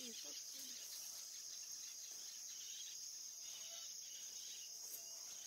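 Steady, high-pitched chorus of insects chirring.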